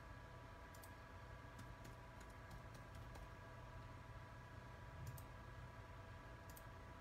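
Near silence: a steady faint electrical hum with a scattering of faint, short clicks, a few at a time.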